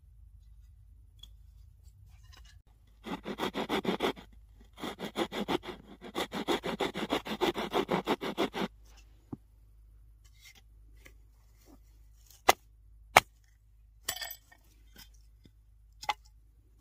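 Knife blade shaving a wooden stick in quick short strokes, about five a second, in two runs through the first half. Later come a few separate sharp knocks or clicks, two of them loud.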